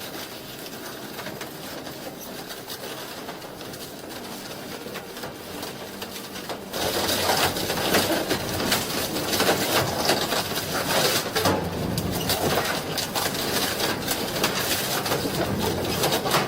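Wood-shredding machine running, crushing wood with a dense crackling and grinding. About a third of the way in it suddenly gets much louder, with many sharp cracks.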